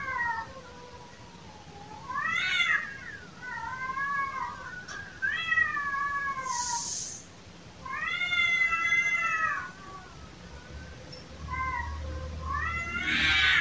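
Domestic cats yowling at each other in a series of long, wavering calls with short gaps between them. This is caterwauling of the kind said to be a tom and a female calling to each other in courtship.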